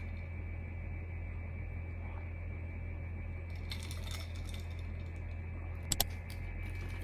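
Steady low electrical hum with a few soft handling noises, and a sharp double click about six seconds in.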